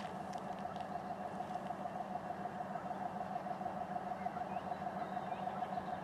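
2TE10M diesel locomotive's 10D100 two-stroke opposed-piston diesel engine working as it pulls a freight train away from a stand. It makes a steady drone with a fast, even pulsing tone above a lower hum.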